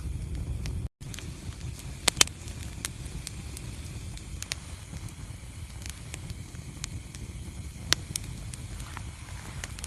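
Wood fire burning in a fireplace: a steady low rumble of flames with irregular crackles and sharp pops, the loudest pops a couple of seconds in and near the end. The sound drops out for an instant about a second in.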